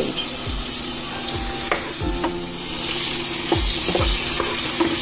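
Sliced tomatoes frying in hot oil in a nonstick pan, sizzling, with a wooden spatula knocking against the pan as they are stirred. The sizzle grows louder about three seconds in.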